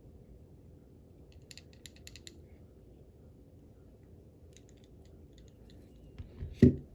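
Small metallic clicks from a steel padlock and its brass core being handled and probed: a quick run of them about a second and a half in, fainter scattered ticks later, then a single loud knock near the end.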